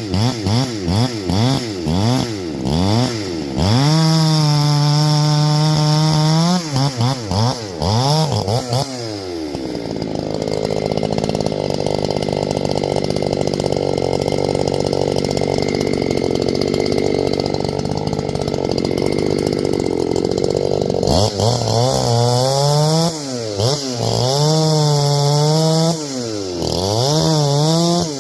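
Ported two-stroke chainsaw revved in quick blips and held wide open, then for about twelve seconds in the middle running under load in a cut, its pitch pulled down and steady, before blipping again near the end.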